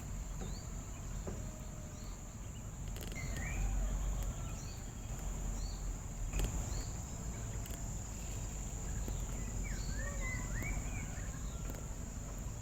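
Wild birds chirping and calling back and forth in short, scattered phrases over a steady, high insect drone.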